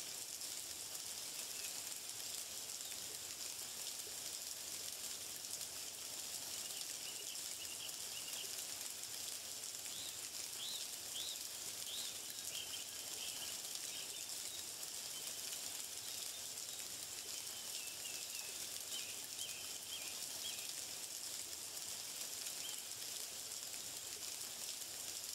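Small birds chirping in short calls over a steady high hiss of outdoor ambience, the chirps clustered in the middle of the stretch.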